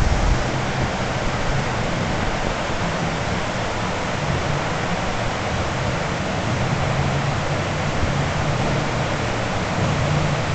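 Whitewater rapids rushing steadily. Underneath is the low drone of a jet boat's supercharged 6.0-litre gasoline engine, which grows stronger near the end as the boat climbs through the rapid toward the shore.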